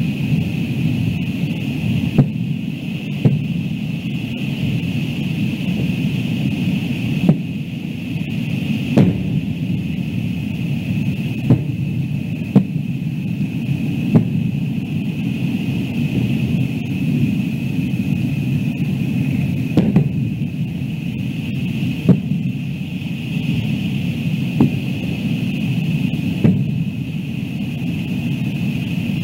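Aerial fireworks shells bursting: about a dozen sharp bangs at irregular intervals over a steady background rush.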